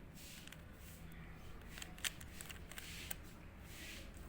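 Plastic clicks and rattles of a 3x3 Rubik's cube being turned by hand, irregular, with one sharper click about two seconds in.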